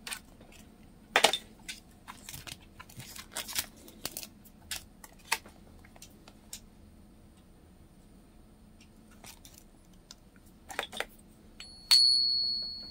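Crinkling plastic packaging and small clicks as a coin ping tester is handled. Near the end, a .999 fine silver round held in the tester is flicked and rings with a clear, high, sustained ping that slowly fades, the ring taken as the sign of genuine silver.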